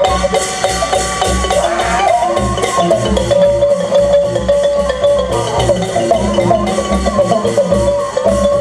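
Live likay accompaniment music: a quick xylophone-like mallet melody over a steady drum beat of about two beats a second, with a long held tone above it.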